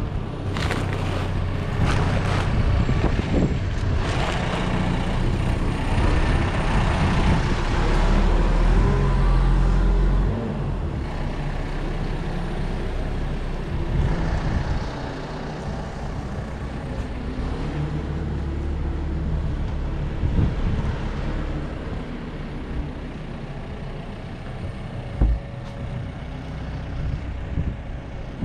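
Diesel engine of a farm loader running and revving up and down as it works, loudest in the first third. Two sharp knocks come in the second half.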